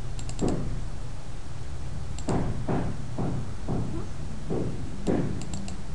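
Computer mouse clicking a few times in short groups, with soft low thuds between the clicks, over a steady low hum of mic or computer noise.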